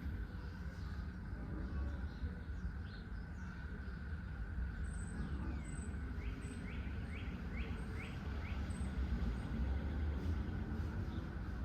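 Songbirds chirping outdoors, with a quick run of short, falling chirps in the middle, over a steady low rumble.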